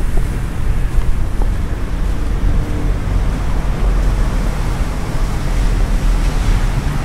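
Storm wind buffeting the phone's microphone: a steady, uneven low rumble with a hiss over it.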